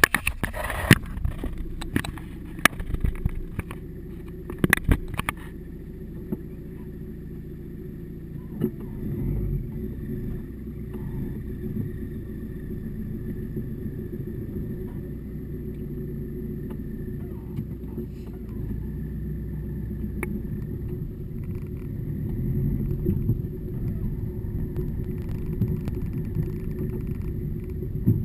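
Car engine running at low speed as the car drives off slowly, a steady low rumble. There are several sharp knocks in the first five seconds.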